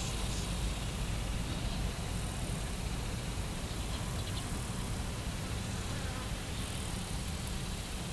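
Insects buzzing steadily over a constant low rumble, with a faint high drone that grows a little brighter in the second half.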